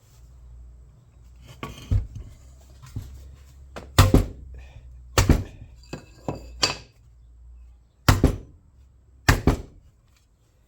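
Hand tools knocking and clunking against metal parts of a small lawnmower engine: about half a dozen sharp knocks, several in quick pairs, one with a short metallic ring in the middle.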